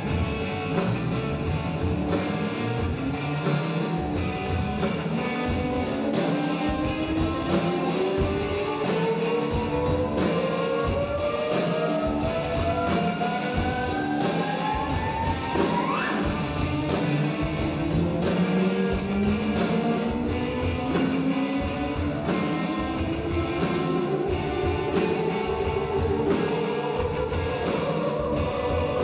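Theremin music over backing music with a steady beat. The theremin plays long, smooth upward glides in pitch: one climbs slowly for about twelve seconds and flicks sharply upward at its top, then another slow rise begins about two-thirds of the way through.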